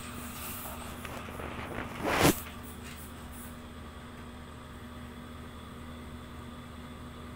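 Steady hum and hiss of a room air conditioner, with one short, loud burst of noise about two seconds in.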